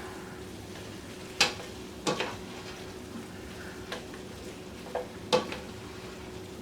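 Garlic, onions and mushrooms sizzling softly in butter in a pot while being stirred. A utensil knocks against the pot four times, twice around a second and a half to two seconds in and twice near five seconds.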